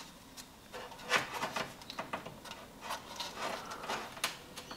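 Scrunched aluminium foil crinkling and rubbing under the fingers as it is pressed and smoothed over the end of a pipe: faint, irregular rustles and small clicks.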